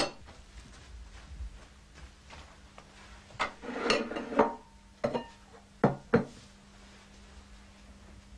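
Hard objects being handled and set down: a sharp knock at the start, a cluster of clattering around four seconds in, then two sharp knocks in quick succession about six seconds in.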